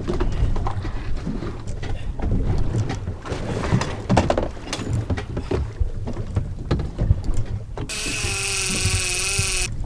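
Wind on the microphone and water against a small fibreglass fishing boat, with scattered knocks from on board. Near the end a loud whine with a wavering pitch sounds for about two seconds and stops suddenly.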